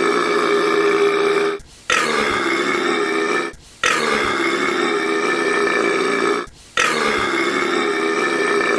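Loud, drawn-out burps, four in a row, each lasting a couple of seconds and starting abruptly after a short break.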